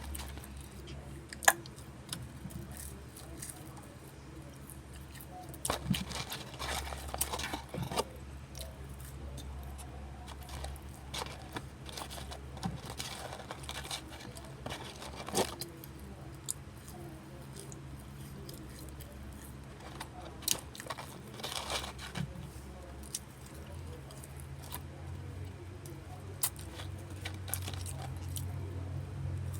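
A child eating french fries: scattered small clicks, crunches and crinkles over a steady low hum.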